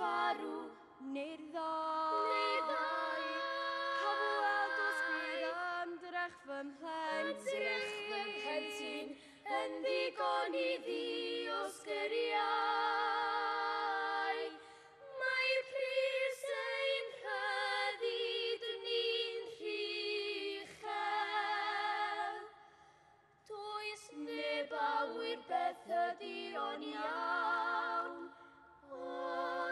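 Three young girls singing unaccompanied in harmony, with held notes and vibrato and short breaks between phrases.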